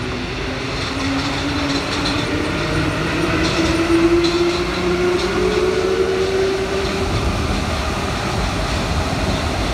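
MP73 rubber-tyred Paris Métro train running, with loud rolling noise and a whine that climbs in pitch over the first several seconds as it gathers speed. Faint clicks sound now and then.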